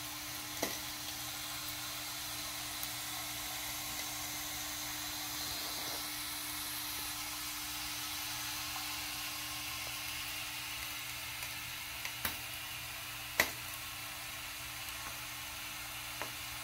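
Wilesco D20 model steam engine's boiler heating over burning dry-fuel tablets, giving a steady sizzling hiss as steam pressure builds. A few sharp clicks, the loudest about 13 seconds in.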